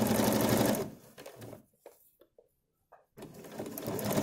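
Electric sewing machine stitching in a fast run. It slows to a few single stitches and stops about a second in, then starts up again about three seconds in.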